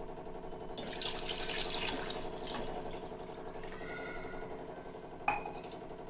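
Water poured from a steel tumbler into a steel pot of boiled eggs, splashing and gurgling for a couple of seconds before tailing off. A single sharp metallic clink about five seconds in.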